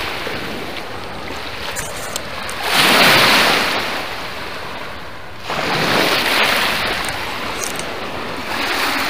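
Lake waves washing onto the shore, the rush swelling and falling away about every three seconds, three times over.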